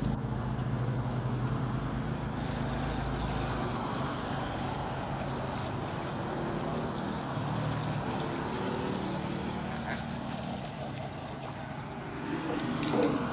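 Well water poured from a bucket through a plastic-bottle funnel into a plastic jerrycan, a steady splashing gush, over a steady low hum that fades out near the end.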